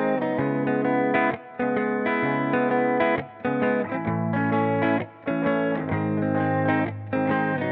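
Background music led by electric guitar, with chords held and broken by short pauses every second or two.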